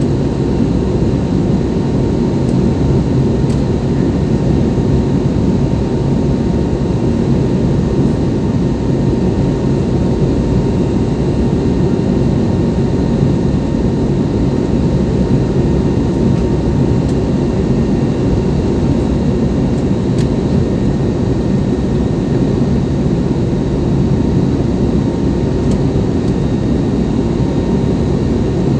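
Steady drone inside the cabin of an Airbus A320neo, from its Pratt & Whitney PW1127G geared turbofan engines and the rushing air, with a faint steady whine above it.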